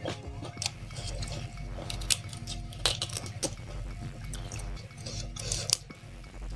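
Raw pak choy being snapped apart by hand and chewed: irregular crisp cracks and crunches, the loudest about two and three seconds in.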